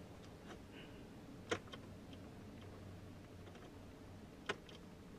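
Mouse buttons clicking: two distinct clicks about a second and a half and four and a half seconds in, with a few fainter ticks between them.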